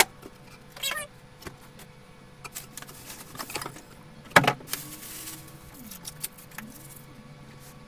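Handling of a boxed refrigerator and its packaging: scattered rustles and scrapes, a sharp knock about four and a half seconds in, then a low wavering tone that bends in pitch for a couple of seconds.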